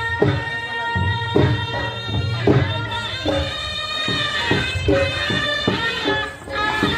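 Chhau dance music: a reedy wind instrument plays a sustained, slightly wavering melody over drums beating about twice a second.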